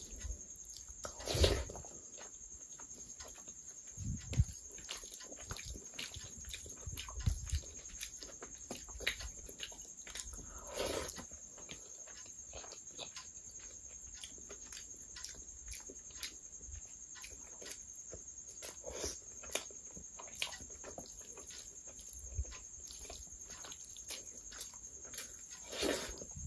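Close-miked eating by hand: fingers squishing rice into curry sauce, with wet chewing and mouth smacks. It is a string of small sticky clicks with a few louder smacks, the last one near the end as a handful goes into the mouth.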